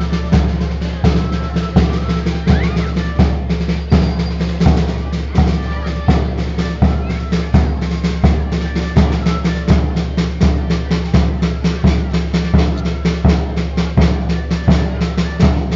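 Negrillos dance music: a loud, steady drum beat about three strokes every two seconds, with a high melody line and a low steady hum underneath.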